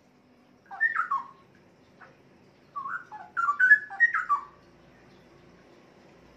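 Straw-headed bulbul (cucak rowo), a male, singing in two bursts of loud, liquid whistled phrases that glide up and down: a short one about a second in and a longer, richer phrase from about three seconds in.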